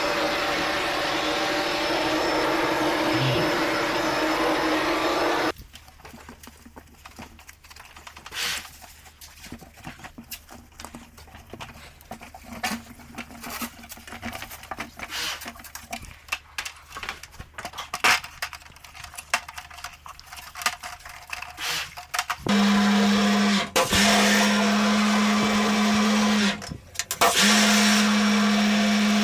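A motor-driven cleaning machine runs with a steady hiss and hum for about five seconds, then stops. Scattered knocks and clicks of parts being handled follow. About two-thirds of the way in, a motor starts again with a steady hum and hiss, cutting out briefly twice.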